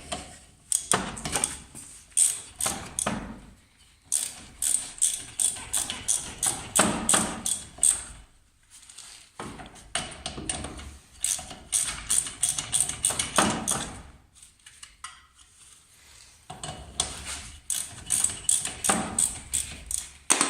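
Ratchet wrench being worked back and forth on a nut on an Opel Corsa's front tie-rod end, clicking rapidly in four long runs with short pauses between.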